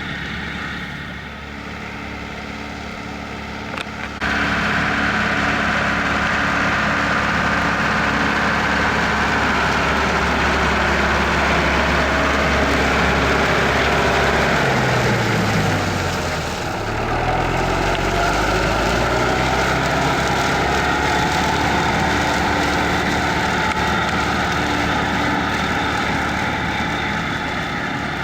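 Mercedes-Benz MB-Trac tractor's diesel engine running steadily while working potato-harvesting machinery in the field. It gets suddenly louder about four seconds in, and about halfway through the engine note dips and then recovers.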